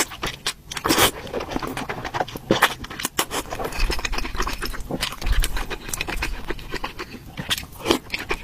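Close-miked eating sounds: a noodle slurp about a second in, then wet chewing and lip-smacking made up of many short clicks.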